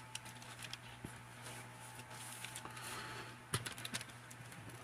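Faint, scattered light clicks and rustling of a plastic Transformers figure being handled, with one sharper click about three and a half seconds in, over a steady low hum.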